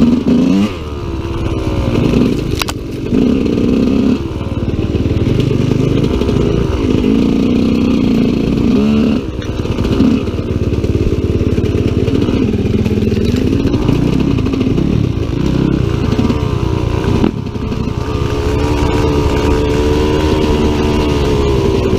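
Husqvarna dirt bike engine revving up and down while riding, its pitch rising and falling again and again with the throttle.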